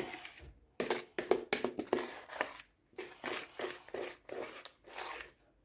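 Spoon stirring thick, sticky clear slime made from glue and contact lens solution in a plastic mixing bowl: a run of short, irregular sticky, wet stirring sounds, a few each second. The slime is still short of its final consistency.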